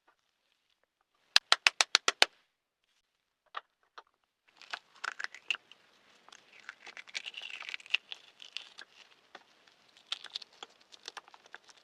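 Balut duck eggshell tapped about seven times in quick succession, then a run of crackling and crinkling with small clicks as the shell is broken and picked away.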